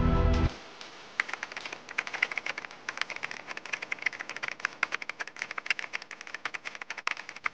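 Music cuts off about half a second in, then a rapid run of typing clicks follows: a typing sound effect for a title being typed out on screen letter by letter.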